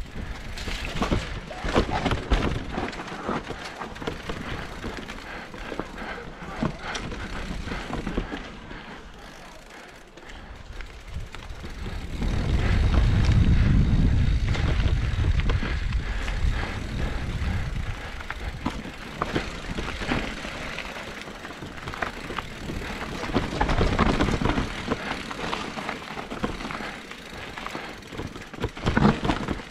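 Electric mountain bike ridden fast down a dirt trail: tyres rolling and crunching over dirt and roots, with frequent knocks and rattles from the bike over bumps. Wind buffets the microphone throughout, heaviest for a few seconds near the middle.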